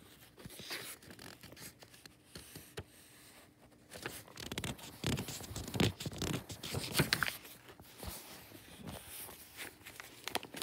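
Paperback book pages rustling as the book is handled and a page is turned, a string of irregular scratchy rustles that are loudest around the middle.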